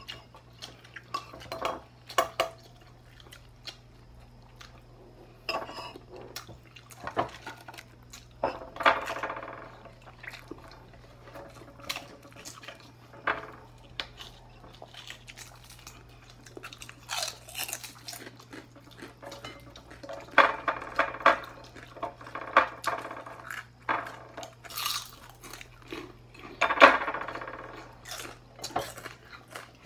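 Spoon and fork clinking and scraping against a plate in irregular clicks while eating a meal of rice and fried dried fish.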